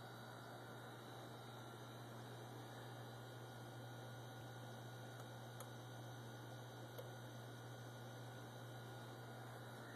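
Faint, steady electrical mains hum, with a couple of light clicks about halfway through.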